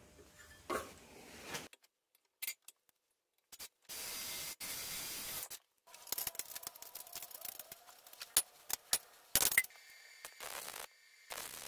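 Light metal clicks and handling of steel brake and shaft parts, with several short hissing bursts, broken by brief silent gaps.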